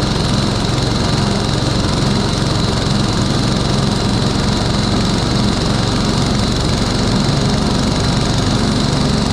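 Small petrol engine running steadily at an even speed, with a thin high whine over its low hum and no change in pitch.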